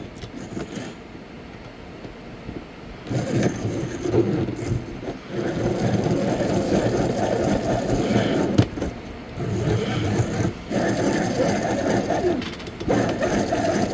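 Antique Yale hand-crank key machine cutting a key blank as the crank is turned: a rough, continuous grinding that starts about three seconds in and stops briefly twice, with a sharp click about halfway through.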